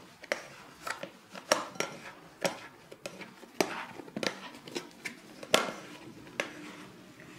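A plastic bowl scraper scraping and knocking against the sides of a glass mixing bowl while folding a sticky bread dough: irregular sharp clicks about once or twice a second, the loudest about five and a half seconds in.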